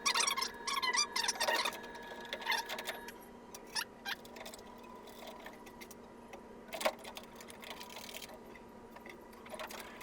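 Quick metal clicks and rattles of caster hardware and hand tools being worked, mostly in the first few seconds, with single clicks later, while caster wheels are bolted onto the bottom of a steel rolling tool chest. A faint steady hum runs underneath.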